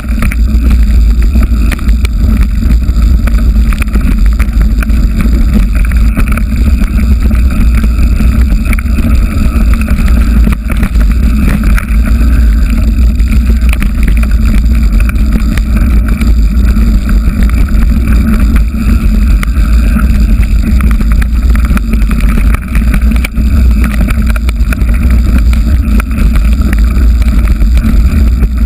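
Loud, steady rumble of wind buffeting an action camera's microphone, mixed with the rattle of a mountain bike riding fast over a rocky dirt singletrack.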